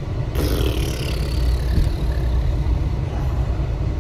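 Semi truck's diesel engine running, a steady low rumble heard inside the cab. A sudden hiss cuts in about a third of a second in and fades away over about a second.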